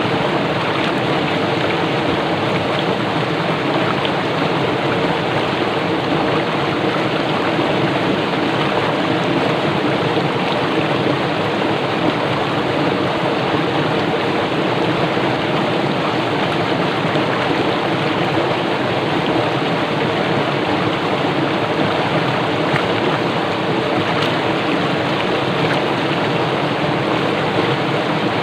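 Swift stream rushing over rocks, a steady churning rush of water.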